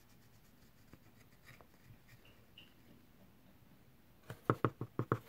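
A pencil being twisted in a small handheld pencil sharpener, the blade scraping faintly as it shaves the wood. Near the end, a quick run of about eight loud, sharp clicks.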